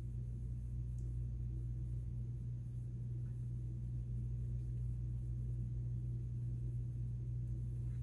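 A steady low hum, with no other distinct sound.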